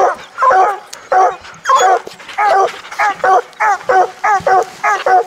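Bear hounds barking at a bear wedged in a hole in the ground, a fast run of short, pitched barks at about two or three a second.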